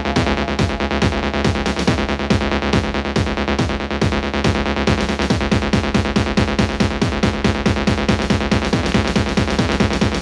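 Electronic dance music from a DJ mix: a fast, steady kick-drum beat under synthesizer chords and a held synth tone.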